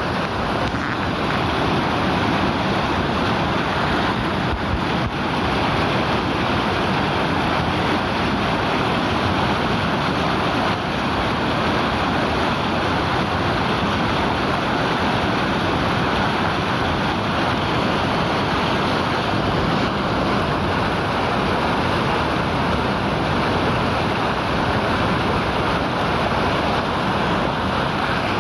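River water rushing steadily over rocks, a constant dense roar of flowing water.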